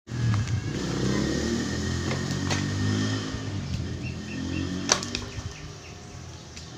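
Pieces of firewood knocking and clattering in sharp clicks as they are picked from a pile, the loudest about five seconds in, over a low motor drone that fades away in the second half.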